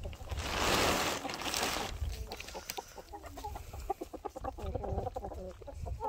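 A flock of chickens clucking as they feed, many short calls overlapping. About half a second in comes a rustling noise lasting about a second and a half.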